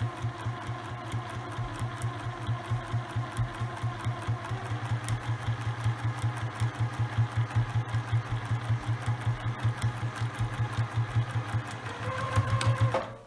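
Electric domestic sewing machine running steadily, stitching through a layered fabric strip, with the motor hum and a fast, even rhythm of needle strokes. Its tone shifts briefly near the end, then it stops.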